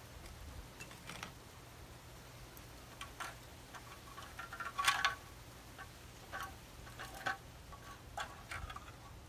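Light, irregular clicks and taps, about eight of them, the loudest about five seconds in, over a low steady hum.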